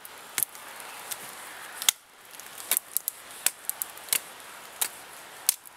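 Bear Grylls Ultimate survival knife chopping at a conifer limb: about a dozen sharp, irregular cracks and knocks of the blade striking the wood.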